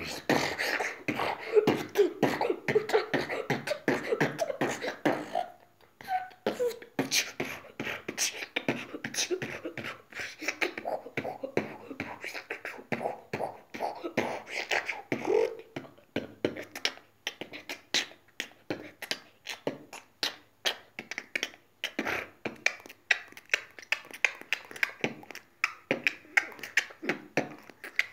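Beatboxing into cupped hands: a fast stream of sharp percussive mouth sounds, with a hummed pitched line under the first few seconds. There is a short break about six seconds in, another burst of humming around the middle, and then steady clicking beats.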